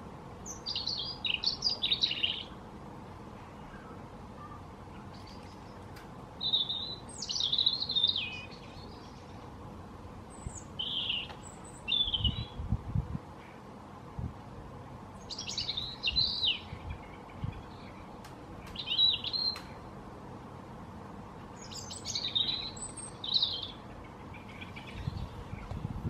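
European robin singing: about seven short phrases of high, thin, warbling notes, each a second or two long, separated by pauses of a few seconds.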